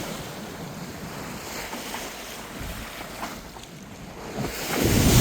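Sea water rushing past a moving boat's hull, with wind buffeting the microphone; the rush swells louder near the end.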